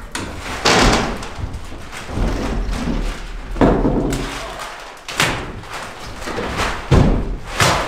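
About five heavy, irregular thuds and bangs of wooden structure being knocked apart during demolition: wood and plywood struck and falling.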